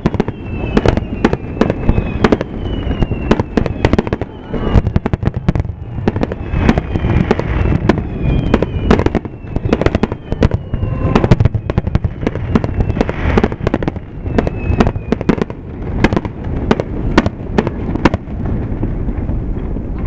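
Fireworks display: shells bursting in a rapid, continuous barrage of loud bangs, with short falling whistles now and then.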